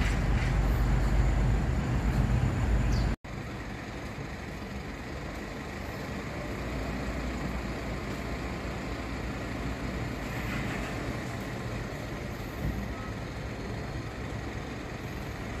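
Steady low rumble of vehicle noise that cuts off sharply about three seconds in, followed by a quieter, steady rumble of vehicles for the rest of the time.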